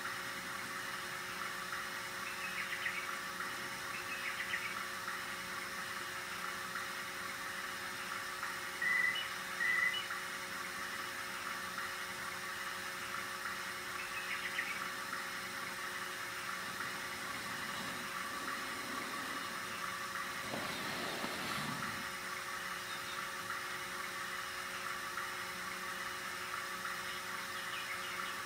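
RCA 3700F cassette deck's tape transport running: a steady whir and hum from the capstan motor, belts and flywheels. Two short high chirps sound about nine and ten seconds in.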